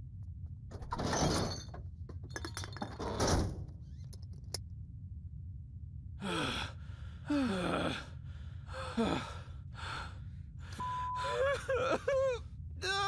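Two cartoon characters gasping and groaning in exhaustion and shock after a near-death escape, their moans falling in pitch and turning into wavering wails near the end, over a steady low hum of the ship's cockpit. Two heavy rushing thuds come in the first few seconds.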